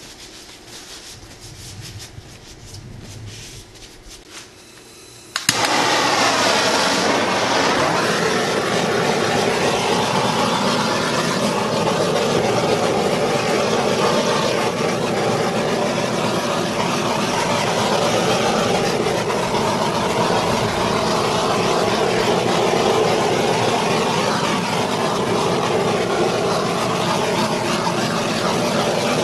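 A handheld gas torch is lit with a sharp click about five seconds in, then burns with a steady, loud hiss of flame as it is played over the wet acrylic pour paint.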